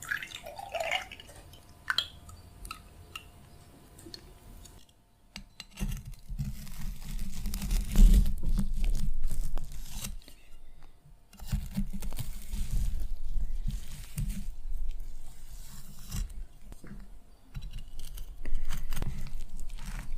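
Close-miked eating of a Nutella M&M cookie pie: light crackles and clicks in the first seconds, then from about six seconds in loud, wet chewing and crunching of the cookie and candy-coated M&Ms.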